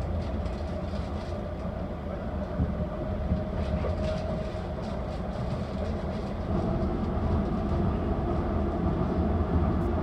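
Docklands Light Railway train running, a steady rumble of wheels and motors heard from inside the car, growing louder about six and a half seconds in.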